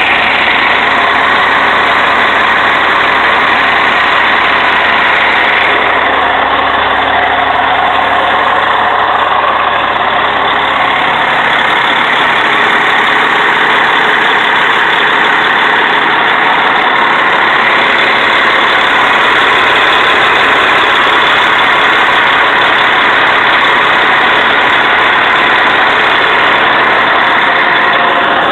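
Caterpillar 3176 inline-six diesel in a Ford L9000 truck idling steadily, heard up close at the open engine bay.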